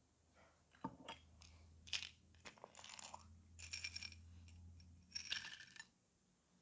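Small plastic flower-shaped slime decorations rattling in a little clear plastic cup as they are shaken out, in three short bursts, after a few sharp clicks of handling about a second in.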